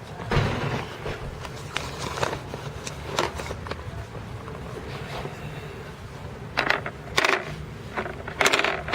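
Knocks and clicks on a hollow carbon fiber and kevlar mini quad body shell, which sounds sort of like a canoe. The knocks are scattered, with a quick cluster late on.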